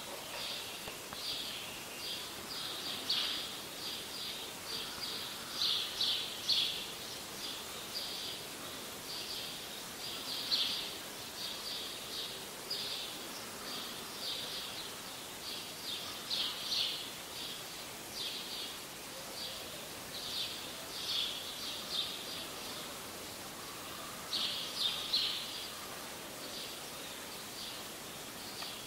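Small birds chirping again and again, short high chirps coming in quick clusters over a faint steady hiss.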